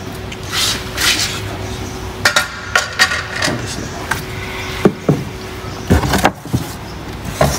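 Handling noise in a car's boot: carpet and floor covers rustle and slide, with scattered knocks and clicks of plastic trim being moved by hand.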